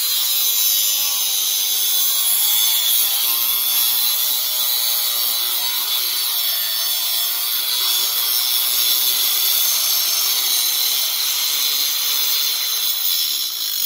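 DeWalt angle grinder's cut-off wheel cutting through the metal housing of a fuel pressure regulator and filter: a loud, steady high-pitched screech, the motor's pitch wavering as it is loaded. It stops suddenly at the very end.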